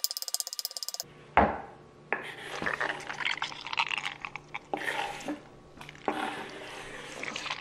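Kitchen knife chopping feta cheese on a wooden cutting board in fast, even taps, about ten a second, stopping about a second in. A sharp knock follows, then the knife scraping and pushing the crumbled feta across the board.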